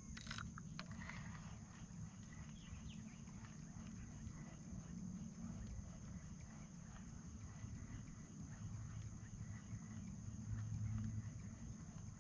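Steady high-pitched insect chirring from the shore, faint, over a low rumble, with a few sharp clicks near the start.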